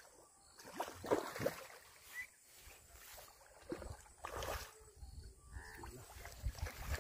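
Faint, irregular splashing and swirling of water from a hooked fish thrashing at the surface while it is played on a pole line.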